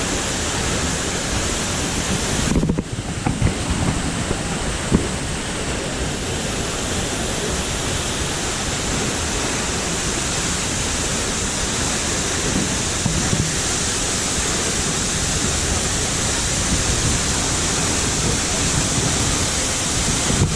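Sikulikap waterfall's heavy flow: a steady, even roar of falling water.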